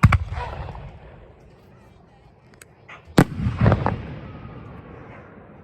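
Aerial firework shells bursting overhead: two loud booms about three seconds apart, each followed by a fading rumble.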